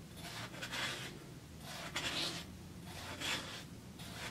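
Kitchen knife slicing straight down through watermelon flesh to the rind, about one stroke a second.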